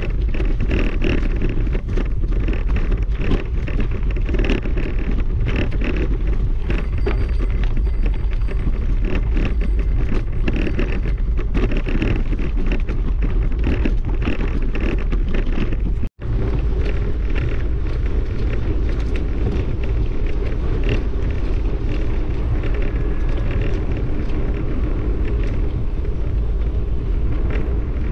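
Footsteps crunching on a gravel dirt track, about one a second, under a steady low rumble of wind on the microphone. The sound drops out for an instant about halfway through.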